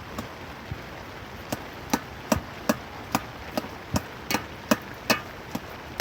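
A steady series of sharp strikes of a tool on a hard surface, about two to three blows a second, some louder than others.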